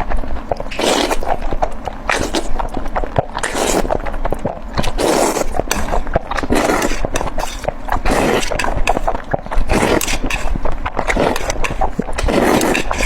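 Close-miked mukbang eating sounds: chewing food with many sharp wet clicks and smacks, and a crunchy burst every second or two.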